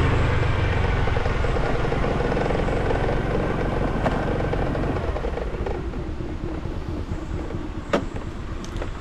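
A vehicle engine running steadily while on the move, then easing off and getting quieter about five seconds in as it slows. A sharp click near the end.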